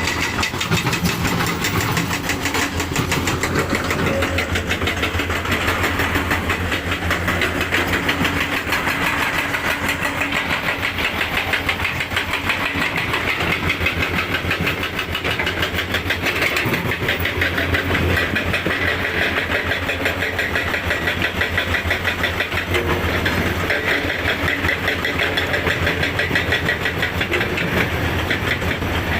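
Heavy diesel engine running steadily, with a fast, even pulsing beat.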